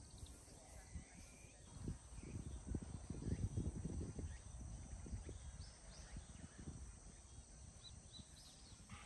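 Quiet open-air ambience: faint short bird chirps and a steady high insect hum. A low, gusty rumble of wind on the microphone comes and goes, strongest about two to four seconds in.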